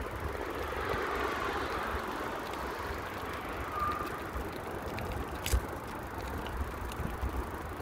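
Bicycle rolling over asphalt: steady tyre and wind rumble, with a short faint tone about four seconds in and a single sharp click a little past the middle.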